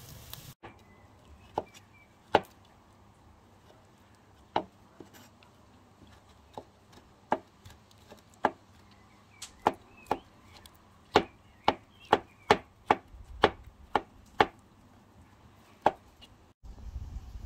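Chef's knife chopping soft roasted, peeled tomatoes on a wooden cutting board, each stroke a sharp knock of the blade on the board. The knocks come singly and unevenly at first, then in a quicker run of about two a second, before slowing again near the end.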